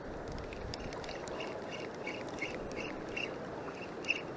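Spinning reel being cranked, giving a short squeak at each turn about three times a second, over steady wind and water noise.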